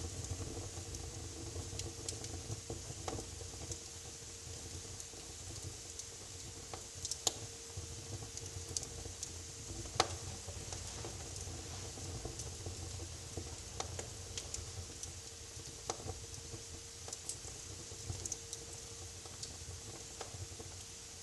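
Wood fire crackling in a fireplace: irregular pops and snaps, a few sharper ones, over a low steady rumble and a faint steady hum.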